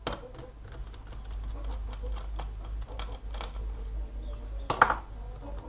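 Irregular small clicks and taps of laptop parts being handled and worked loose during disassembly, with one sharper click about five seconds in.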